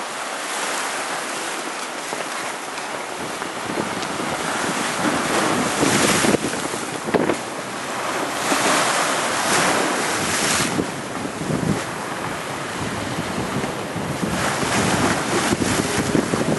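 Storm surf washing and breaking over rocks during a hurricane, with strong wind buffeting the microphone. The sound swells into louder surges several times as waves come in.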